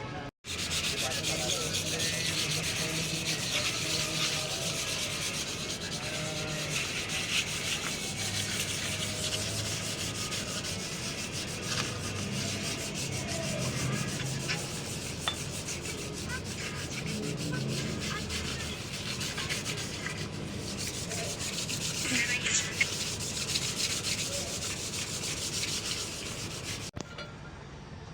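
Steady rasping, rubbing sound of abrasive sanding or scraping by hand, which cuts off suddenly near the end.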